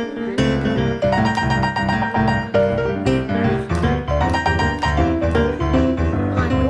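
Background piano music with a steady beat and a bass line.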